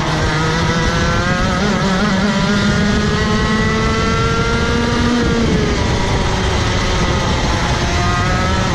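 Rotax Max Evo 125 cc two-stroke kart engine at full throttle, its pitch climbing steadily for about five seconds, then dropping away as the throttle is released for braking.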